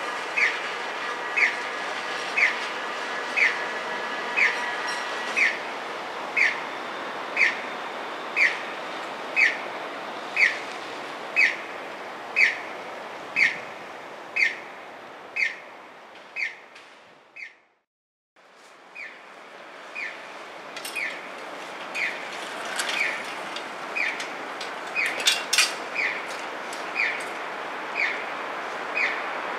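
Electronic bird-chirp audible guidance signal for visually impaired pedestrians, one short falling chirp about every second. It fades away about halfway, then starts again after a short break. A steady high tone runs under the first few seconds, and a few clicks come near the end.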